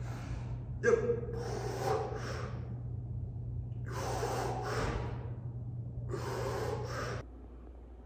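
A man breathing hard through a set of seated dumbbell shoulder presses: about four forceful, gasping exhales, the first with a short grunt about a second in. A steady low hum runs underneath and cuts off near the end.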